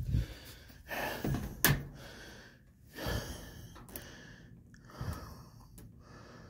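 A person breathing heavily, with several loud breaths about two seconds apart. There is a sharp knock about one and a half seconds in.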